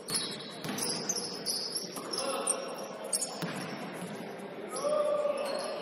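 Basketball game sounds in a gym: a ball bouncing on the court in a few scattered knocks, with short high sneaker squeaks on the floor.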